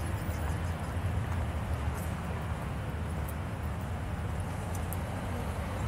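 Steady outdoor city ambience: a low, even rumble of distant traffic and open-air hubbub, with a few faint ticks.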